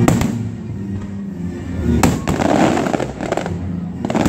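Aerial fireworks shells bursting, with one sharp bang at the start and another about two seconds in. Each bang is followed by a spell of crackling from crackling-star effects.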